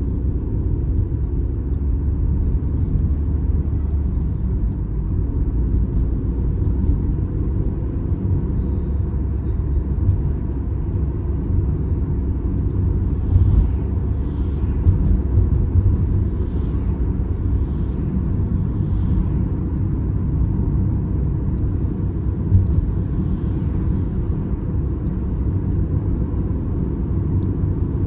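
Opel Astra H being driven: a steady low rumble of engine and road noise.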